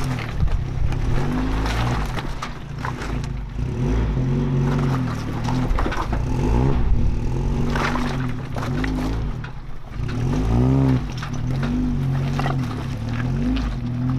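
Four-wheel-drive vehicle's engine revving up and down as it crawls over boulders, with occasional knocks from rock under the tyres and background music underneath.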